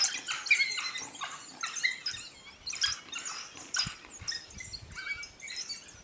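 A pack of African wild dogs making many short, high-pitched twittering squeals that overlap, dense at first and then thinning out. These are the pack's excited calls at a leopard up a tree.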